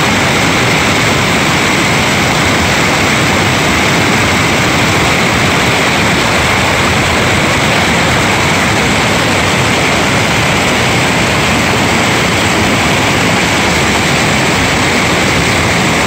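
Whitewater rapids rushing over boulders close by: a loud, steady rush of water with no let-up.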